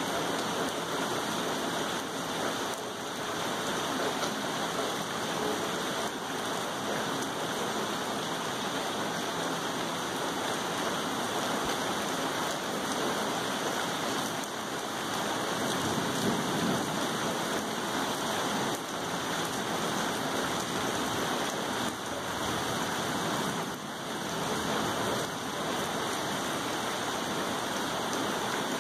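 Steady rain falling, an even hiss of drops that holds without a break.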